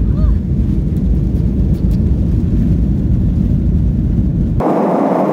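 Airliner cabin noise while the plane rolls on the runway: a loud, dense low rumble of engines and wheels. About four and a half seconds in it changes abruptly to a steady hiss.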